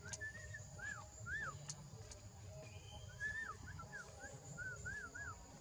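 Two runs of short whistled chirps, each note rising then falling, with a pause of about a second and a half between the runs.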